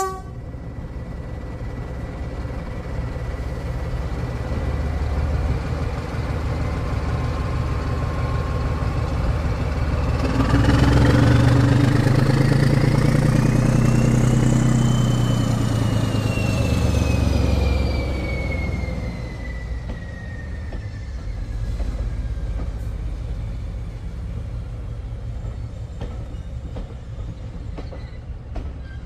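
British Rail Class 14 diesel-hydraulic shunter pulling a train of coaches away under power. Its engine rumble and a whine swell to a peak about halfway through as the locomotive passes close by, then fade, the whine sliding down in pitch. The coaches then roll past with a steady rumble of wheels on rails.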